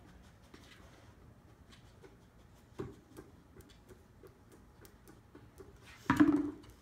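Light ticks and taps as a dog noses among plastic Halloween toys, with a single knock a little before halfway and a louder, brief knock and rustle near the end as it pushes its head into a plastic jack-o'-lantern bucket.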